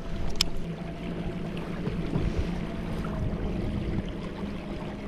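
Electric kayak motor running with a steady hum that eases slightly lower near the end, with water washing along the hull. A single sharp click about half a second in.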